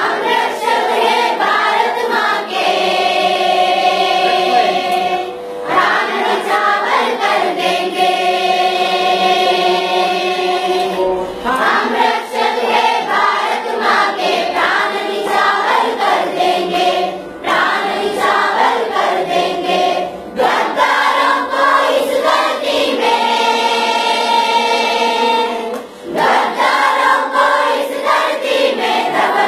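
A large group of schoolchildren singing together as a choir, holding long notes in phrases broken by short pauses every few seconds.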